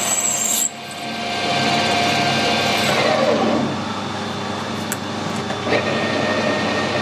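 Metal lathe drilling a brass workpiece with a twist drill: steady machining noise, with a sudden drop about a second in, a falling pitch near the middle as the spindle runs down, and a click near the end after which a steady high whine runs.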